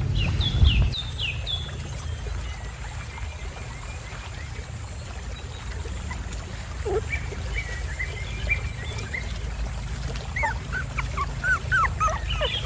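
A dog whimpering in short high cries, a few in the first second and a quick run of them near the end, over a steady low rumble.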